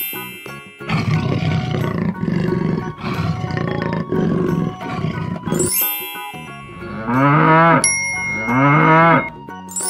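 Cartoon animal sound effects: a big cat's rough roaring growl for several seconds, then a bell ding and two long rising-and-falling cow moos, with a bell ringing steadily under the second moo.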